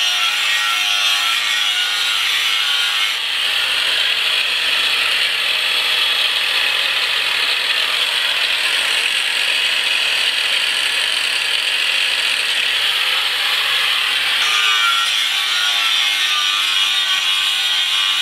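Makita XAG12 36V (2×18V) cordless 7-inch angle grinder with a grinding wheel, grinding a rusty steel I-beam: a continuous high motor whine mixed with the rasp of the disc on the steel. About three seconds in the whine gives way to a harsher, rougher grind, and the clear whining tone comes back at about fourteen seconds.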